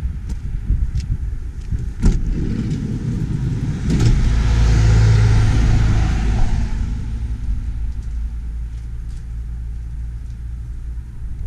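A road vehicle passing by, its tyre and engine noise swelling from about four seconds in and fading over the next three seconds. Under it runs a rumble of wind on the microphone, with a couple of light handling knocks.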